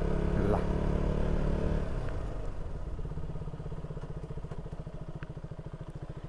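KTM Duke 200's single-cylinder engine running as the bike slows; about two seconds in the engine sound drops, and it settles into a steady idle with an even, rapid beat.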